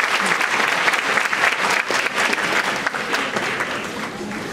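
Audience applauding, the clapping thinning and fading over the last second or so.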